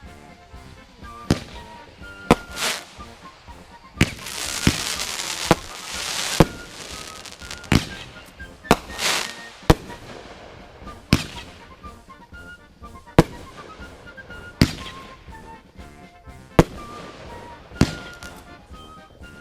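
Fireworks going off: about a dozen sharp bangs at irregular intervals, with a few seconds of dense hissing crackle in the middle.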